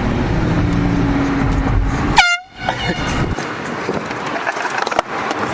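Handheld canned air horn sounding a steady blast for about two seconds, then cutting off abruptly, over the noise of a moving car.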